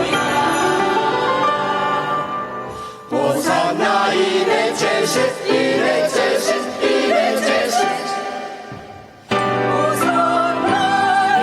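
Choir singing with instrumental accompaniment and a jingle of sleigh bells in the middle. The music dies away twice, about three seconds in and again near nine seconds, and comes back in abruptly each time.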